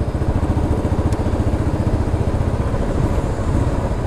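Royal Enfield Classic 350's single-cylinder engine and exhaust thumping steadily while riding, with wind buffeting the microphone.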